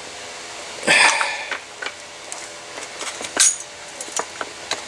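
Scattered clicks and knocks of a Mossberg ATR 100 rifle's barreled action being worked down into its stock and seated, with a sharp click about three and a half seconds in. The loudest sound is a short rush of noise about a second in.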